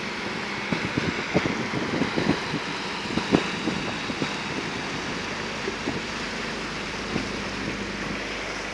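Motor barge passing close by, its engine running and water churning along the hull, with irregular wind gusts buffeting the microphone.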